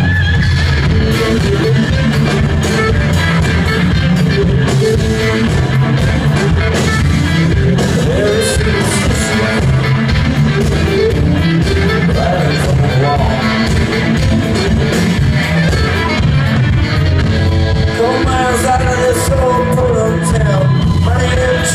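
Rock band playing live: electric guitars over drums, with keyboard, loud and steady with no pause.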